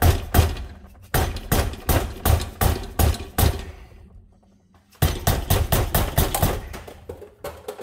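Hammer striking a riding mower's deck height lift lever again and again to bend it back into shape: two runs of quick blows, several a second, with a pause of about a second and a half midway.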